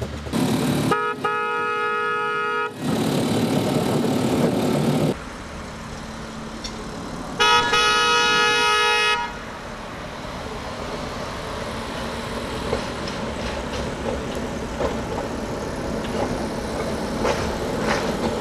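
Horn of a small motorized rail draisine sounding twice, each blast about two seconds long and about six seconds apart, over its small engine running. The engine is loud at first and drops to a quieter steady run about five seconds in.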